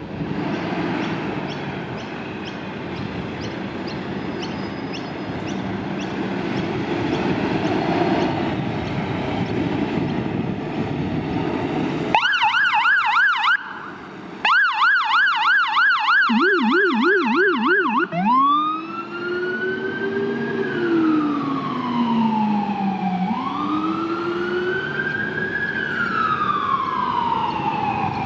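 A fire appliance's heavy engine runs. About twelve seconds in its electronic siren starts in a fast yelp, cuts out for a moment and comes back, and the Rumbler's low-pitched tone joins the yelp. The siren then changes to a slow rising and falling wail, with the Rumbler's low wail following it for a few cycles.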